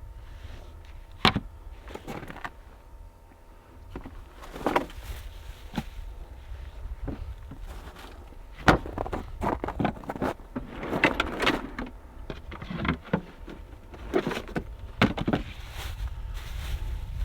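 Scattered knocks and clicks mixed with short bursts of rustling, over a steady low rumble.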